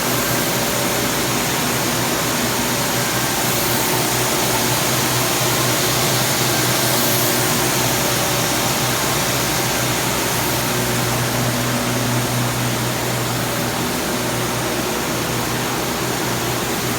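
Large industrial sewing machine running steadily: a dense, even machine noise with a constant low hum.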